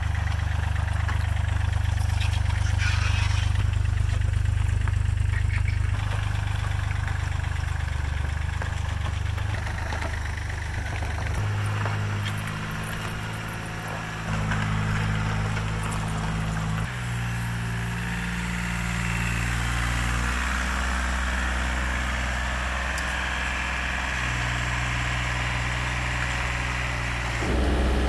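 Takeuchi TB235 compact excavator's diesel engine running, its note shifting up and down in steps several times from a little before halfway as the machine is worked.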